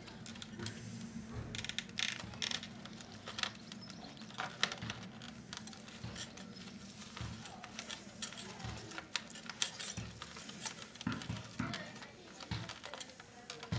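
Irregular light clicks, taps and small rattles of fingers handling the plastic case, parts and wiring of a Philips D6350 cassette recorder, over a steady low hum.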